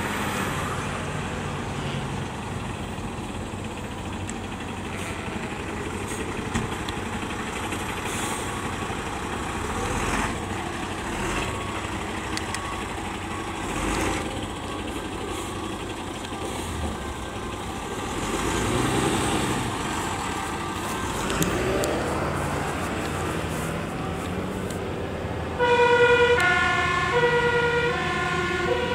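Fire engines driving past at speed, their diesel engines running, with road and traffic noise. Near the end a loud two-tone siren starts, switching back and forth between two pitches.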